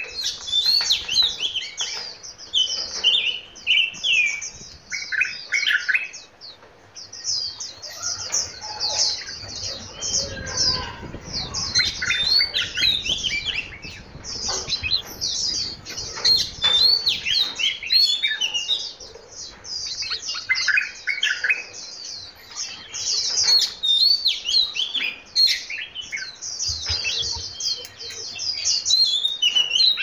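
A flock of small finch-like aviary birds chirping and twittering, many short high calls overlapping almost without a break, thinning briefly a couple of times.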